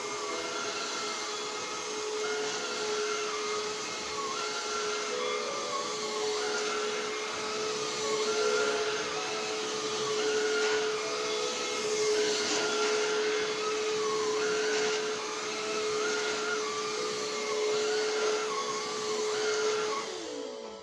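Hoover Fusion cordless vacuum cleaner running: a steady motor whine with a higher sound wavering up and down over it, then switched off near the end, the whine falling in pitch as the motor winds down.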